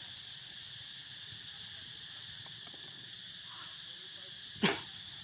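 Steady high-pitched chorus of insects such as crickets or cicadas. A single short, sharp sound cuts in about four and a half seconds in.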